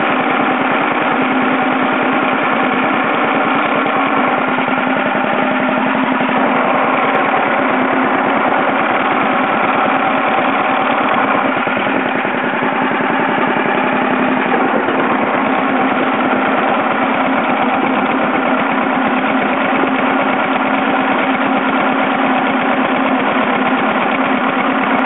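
Mead Speedcat mini dozer's small air-cooled Wisconsin single-cylinder engine running steadily, a rapid even chugging of firing pulses.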